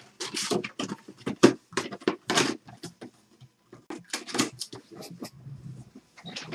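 Trading cards and card packs being handled at a table: a quick run of short rustles and snaps, with a brief lull about three seconds in.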